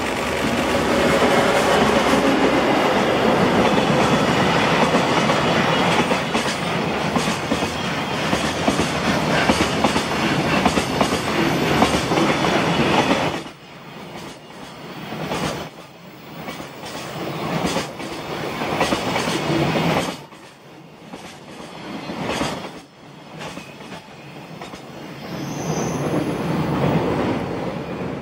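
JR Freight EF210 electric locomotive and its container wagons passing close by while running down the grade, steel wheels rolling and clattering over the rail joints. The steady loud rumble drops off suddenly about 13 seconds in to an uneven, intermittent clatter as the wagons go by, then swells again near the end.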